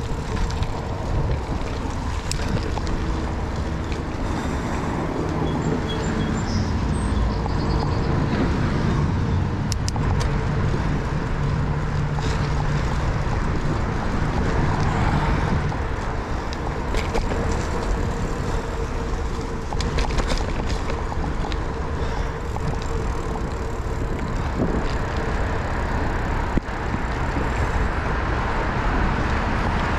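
Steady wind rush on the microphone and bicycle tyres rolling over a muddy dirt path and then pavement, with the hum of road traffic from the highway overpasses above.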